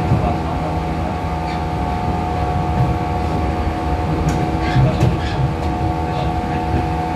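Onboard running sound of a 415 series electric train's motor car: traction motor and gear hum at a steady pitch over wheel-on-rail rumble, as the train holds a steady speed. A few sharp clicks come about four to five seconds in.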